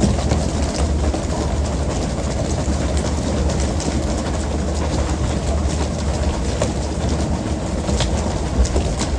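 Steady low rumble of a fishing boat's engine under a constant hiss and splash of water, with scattered sharp knocks and clicks throughout.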